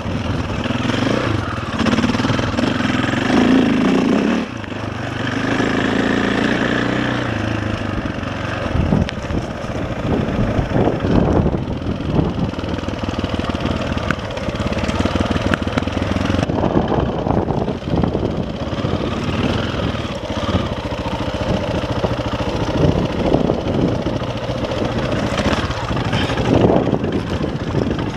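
KTM 525 single-cylinder four-stroke dirt bike engine running under a varying throttle as the bike rides over a rough, rocky trail, its engine speed rising and falling.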